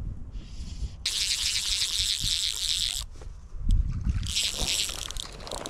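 Fly reel's click drag ratcheting in a fast, even buzz as line is pulled off it: one pull of about two seconds, then a shorter one near the end, with a few low knocks of handling between.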